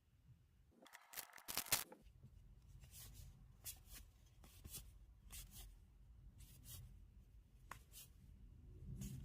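One Piece trading cards being handled and slid against one another. A quick cluster of rustling swishes about a second in is the loudest part, followed by single soft swishes roughly once a second.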